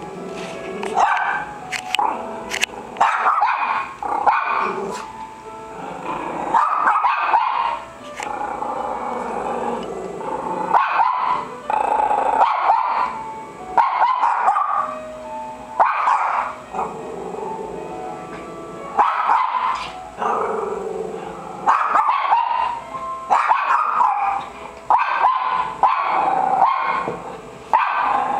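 Two small dogs trading barks, yips and drawn-out whining calls back and forth, one call after another with short pauses between them.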